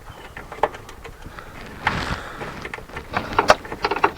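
Ratchet with a 10 mm socket clicking in short runs as a fog light mounting bolt is backed out, with a rustle of movement about two seconds in.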